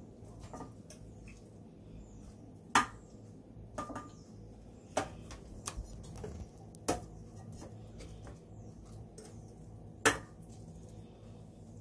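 Kitchen clatter: about five sharp clinks and knocks of dishes and a metal pan, spread out, the loudest about three seconds in and near the end, over a low steady hum. It comes as pieces of semi-dried pollock are laid over radish in the pan.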